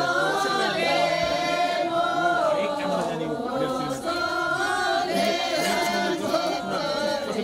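A group of voices singing a Sherpa shyabru song together in long, drawn-out lines.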